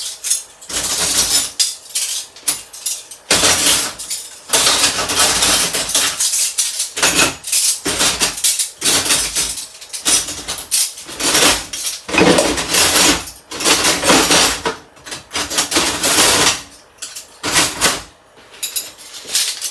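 Metal cutlery clattering and clinking as handfuls of utensils are handled, in loud stretches a second or two long with short pauses between.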